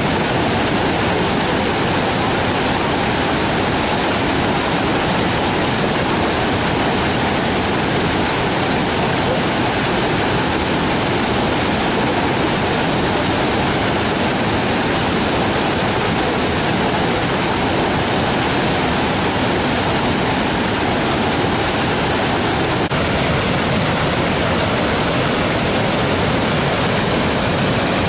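Waterfall rushing: loud, steady water noise with no break. About 23 seconds in, the hiss grows a little brighter.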